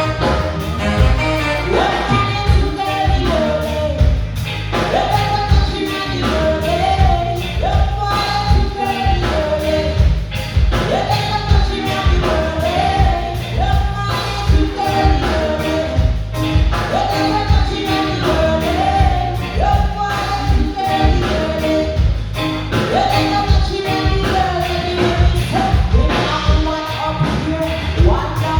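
A live band playing a song, with lead singing over a steady beat.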